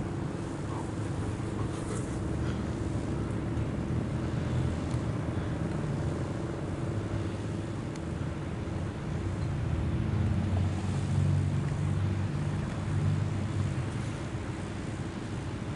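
Steady low motor rumble with a constant hum, swelling a little near the end; no siren wail is heard.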